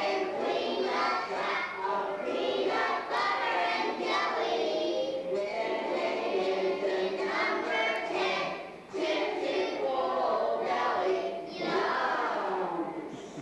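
A group of young children singing a song together, the singing stopping just before the end.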